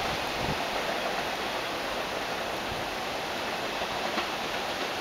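R160B subway train pulling away into the distance. Its low rumble fades out in the first half second or so, leaving a steady hiss of background noise.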